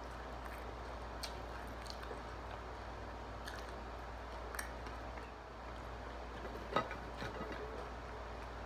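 A person chewing and biting fried food with her mouth close to the microphone: a few short crisp clicks and crunches over a steady hiss, the sharpest one nearly seven seconds in.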